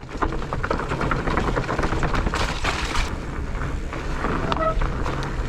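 Mountain bike rattling down a rough trail: a dense run of knocks and clicks from tyres, chain and frame over a low rumble of wind on the camera mic, with a short high squeak about four and a half seconds in.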